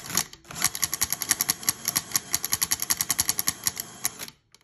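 Cordless drill spinning the crankshaft of a Puch ZA50 moped engine with no cylinder fitted, with a fast, even clacking about ten times a second as the loose crankshaft slaps back and forth in the cases. The drill pauses briefly just after the start and stops a little before the end.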